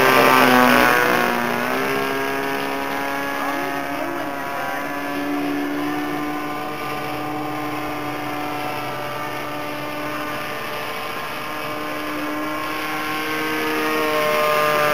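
Evolution .46 two-stroke glow engine of an RC aerobatic plane running at high throttle in flight, a high whine with wavering pitch. It is loudest and drops in pitch in the first two seconds as the plane passes close, then runs steadily and swells again near the end.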